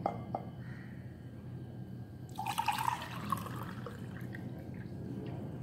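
Water poured from a drinking glass onto dried tamarind in a glass bowl. The pour starts about two seconds in, strongest at first, then runs on more softly.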